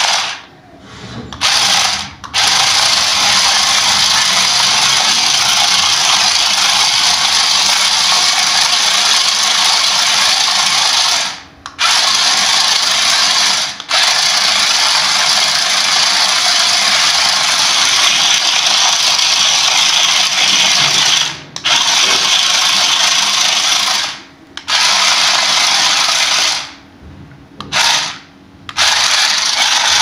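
Toy RC drift off-road truck's small electric drive motors and gears whining loudly as it drives. The whine stops for a moment several times and starts straight back up.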